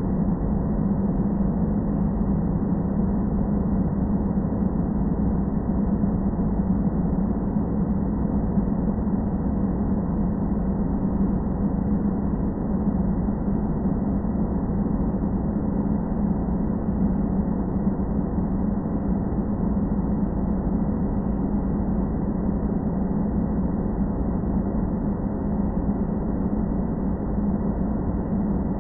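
Steady low rumbling drone with a hum-like band in it and no distinct events: a stock background-noise ambience bed for editing.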